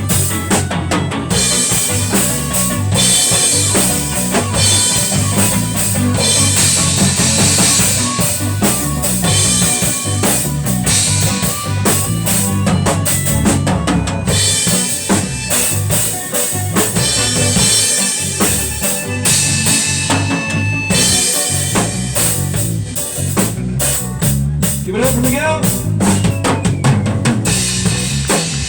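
Music driven by a drum kit: steady kick drum, snare and rimshot hits with other instruments underneath, playing without a break.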